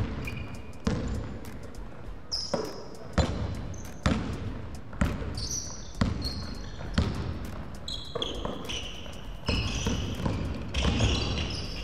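Basketball being dribbled on a wooden gym floor, bouncing about once a second, with short high sneaker squeaks from players moving on the court in between.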